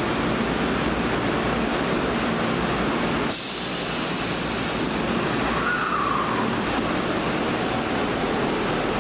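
Osaka Metro 66 series subway train standing at the platform, its equipment giving a steady hum and rush of noise. About a third of the way in, a brighter hiss sets in, and a short falling tone follows a little after the middle.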